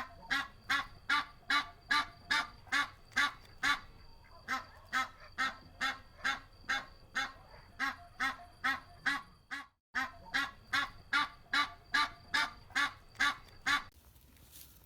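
A large bird calling in a rapid, even series, about two and a half calls a second, with a brief gap about ten seconds in; the calls stop shortly before the end.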